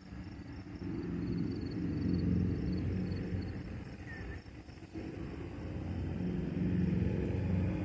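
Distant Norfolk Southern diesel-electric locomotives approaching without cars, their engines a low, steady rumble that swells and eases and swells again.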